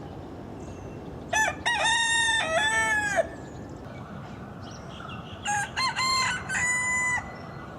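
Rooster crowing twice, each crow a cock-a-doodle-doo of nearly two seconds, a couple of seconds apart, over a steady low background hiss.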